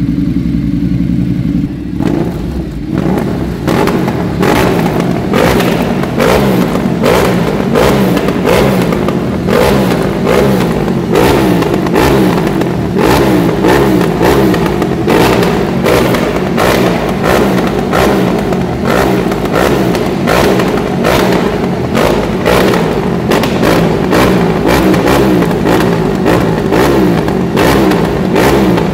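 Ducati Multistrada 1200S's 1198 cc 90-degree L-twin engine running through a newly fitted Arrow aftermarket exhaust. It idles for about two seconds, then is revved in quick throttle blips over and over.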